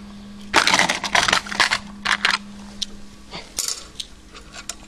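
Small hard objects clattering and rattling in short bursts as someone rummages in a plastic multi-drawer parts organizer, the loudest clatter about a second in; a low steady hum runs underneath.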